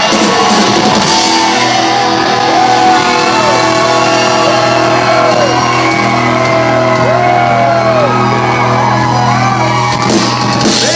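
Live rock music played loud in a club hall: a long held chord rings under shouted and sung voices that rise and fall in drawn-out notes.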